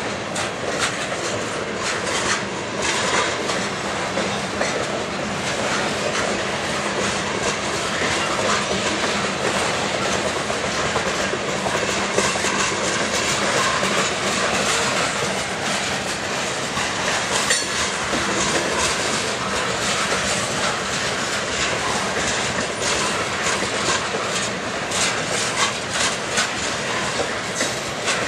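Freight train of covered hopper cars and tank cars rolling past at a steady speed: the steel wheels clack over the rail joints above a continuous rumble.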